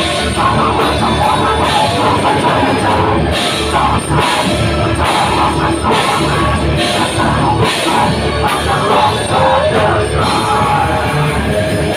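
Live heavy metal band playing loud: electric guitar, bass guitar, drum kit and keyboard together, with a vocalist singing over them.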